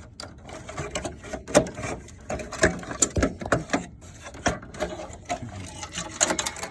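Irregular clicking, knocking and rattling of plastic and metal parts inside a desktop computer case as a part is pushed and forced into place around the heatsink.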